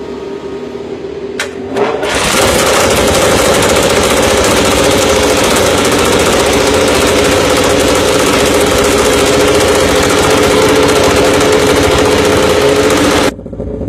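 Ducati Desmosedici MotoGP bike being started with an external rear-wheel starter: the starter spins the engine for under two seconds, then the V4 fires through its Akrapovič exhaust. It runs loud and steady at a fast, even idle, and the sound drops off abruptly near the end.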